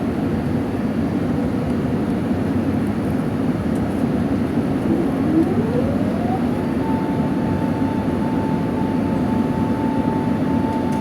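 Steady engine and airflow noise of an Airbus A380 heard inside the passenger cabin. About five seconds in, a whine rises over roughly two seconds and then holds at a steady pitch.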